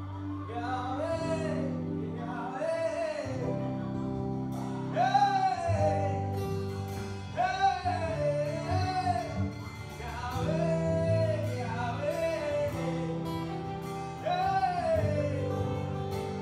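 Gospel worship music: a voice singing long, wavering phrases over sustained instrumental chords, the phrases repeating every two to three seconds.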